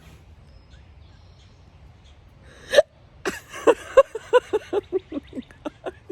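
A single loud, sharp hiccup just before three seconds in, then a quick run of short laughs, about four a second, lasting nearly three seconds.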